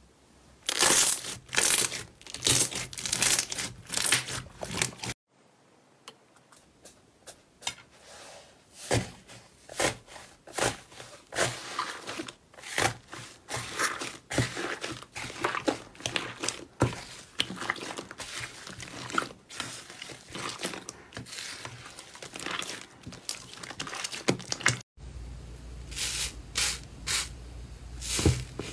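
Hands squishing, stretching and pressing slime: dense sticky crackles, clicks and pops. The sound cuts abruptly twice, about five seconds in and near the end, as it moves from gold slime to a pale blue fluffy slime stretched in a glass dish and then to a red textured slime pressed in a tray.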